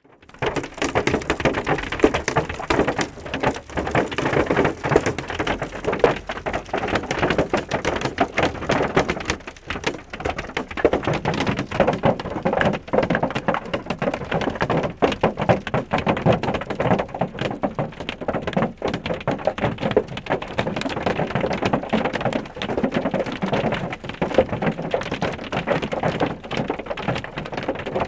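Hail and rain pelting a car's roof and windows, heard from inside the cabin: a dense, unbroken clatter of hard hits.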